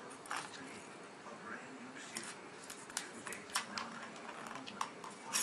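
A plastic ball rolling and knocking around the track of a circular cat track toy as a cat bats at it, giving irregular light clicks and taps, the loudest near the end.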